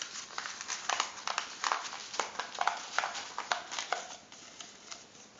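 A sheet of paper crackling and rustling as it is rolled up by hand into a thick tube, a quick irregular run of crackles that dies down about four seconds in.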